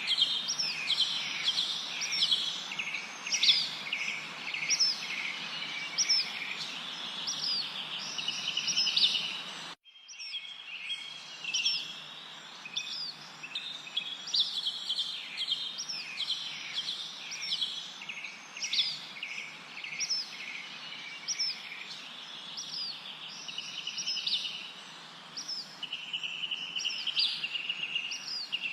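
A chorus of small songbirds chirping and trilling in quick, overlapping short notes over a steady background hiss. The sound cuts out abruptly for a moment about ten seconds in, then the chirping carries on.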